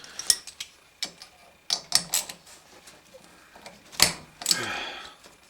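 Irregular sharp clicks and knocks of small metal carburetor parts and hand tools being handled on a workbench during carburetor disassembly. The loudest knock comes about four seconds in, followed by a short scraping rattle.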